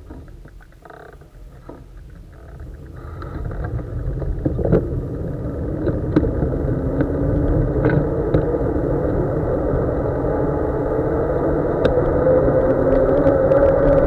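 Wind rushing over the microphone and the knobbly tyres of a cyclocross bike humming on wet tarmac, growing steadily louder and rising in pitch as the bike gathers speed downhill. A few sharp knocks come from bumps in the road.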